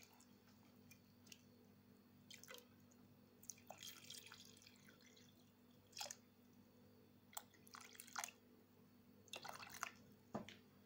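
Faint, scattered drips and small splashes of water being poured into a stainless steel pot of cubed raw potatoes.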